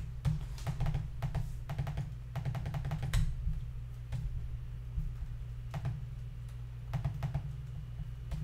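Computer keyboard keys clicking in quick bursts: a run of keystrokes over the first three seconds or so and a shorter cluster around six to seven seconds in, over a steady low hum.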